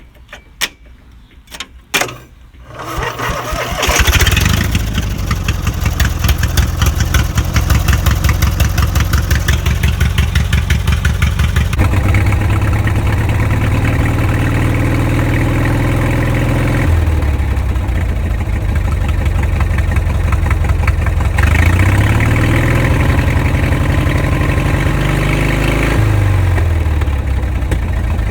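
Truck engine cranked off a homemade battery box through jumper leads, catching after a few seconds of cranking, preceded by a few sharp clicks. It settles into a pulsing idle and is revved twice, the pitch rising and then falling back each time.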